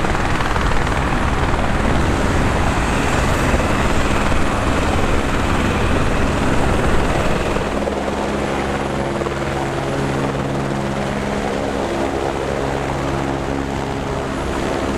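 A steady rushing noise of aircraft on an airport apron for the first seven or so seconds. After a cut, a single-engine Écureuil-type light helicopter hovers close by, its rotor and turbine making a steady drone with a low hum.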